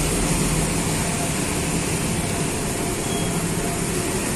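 Diesel engine of a Hino coach bus running, a steady low hum over a wash of mechanical noise.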